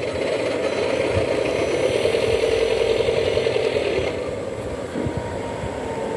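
Model CC201 diesel locomotive running along the track: its small electric motor whirs and its wheels rattle over the rails, steadily, growing quieter after about four seconds.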